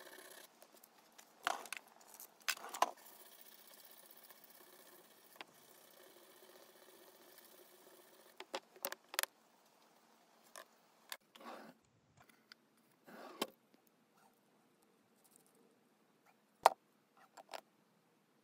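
Short scratchy bursts of hand-sanding a small poplar lure part with folded sandpaper, mixed with scattered light clicks and knocks of tools and parts handled on the bench. One sharp knock comes near the end.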